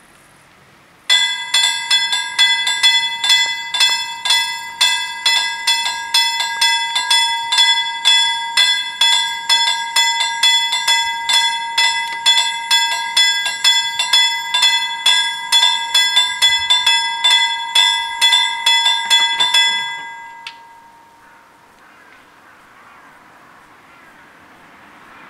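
Swedish level-crossing warning bells ringing rapidly, about three strikes a second, the alarm that a train is approaching and the barriers are coming down. The ringing starts about a second in and cuts off after about twenty seconds, once the barriers are down.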